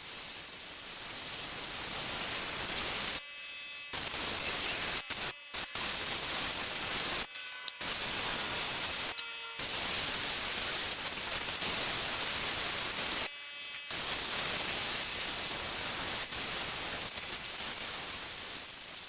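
Soda blaster spraying baking soda with compressed air to strip paint from an RC buggy body: a steady hiss, cut off briefly about five times.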